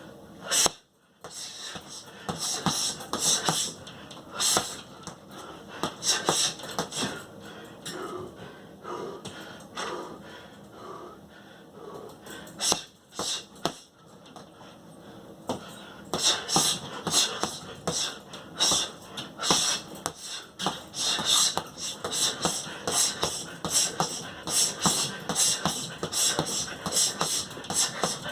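Boxing punches landing in quick combinations, each with a sharp hissed exhale, the way a boxer breathes out on every strike. The strikes come thicker in the second half.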